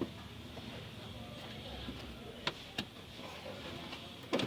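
Three short sharp knocks over a low steady background noise: two about a third of a second apart halfway through, and one near the end.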